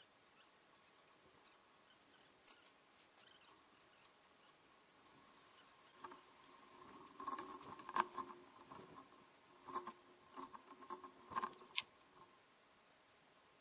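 Faint scattered clicks, taps and light rattles, busiest in the second half, with one sharp, much louder click near the end.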